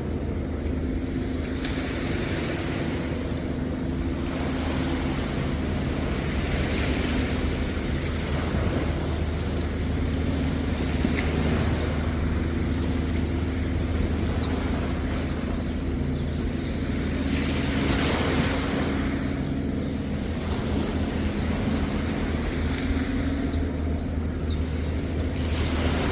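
Waves washing onto the beach in surges every few seconds, over a steady low engine hum.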